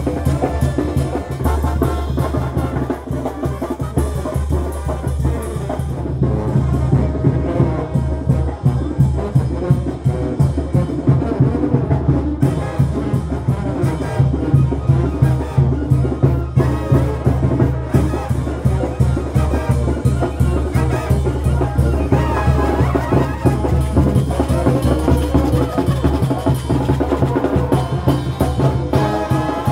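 A marching brass band playing live: trumpets and a sousaphone over a steady beat of conga drum, snare drum and cymbals.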